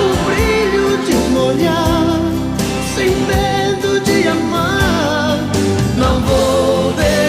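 Music: a song with a solo singing voice over a continuous instrumental backing.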